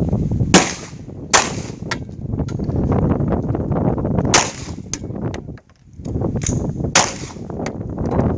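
9mm pistol shots fired irregularly, several loud cracks with fainter shots from other lanes between them, over a steady low rumble.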